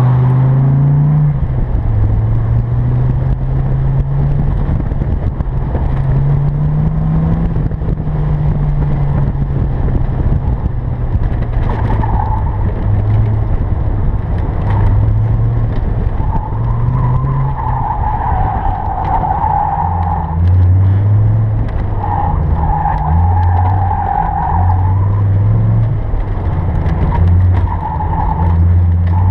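Dodge Viper RT/10's 8.0-litre V10 engine revving up and dropping back again and again as the car is driven hard through an autocross course, heard from inside the open cockpit. Tires squeal in several stretches from the middle on, the longest about two-thirds of the way through.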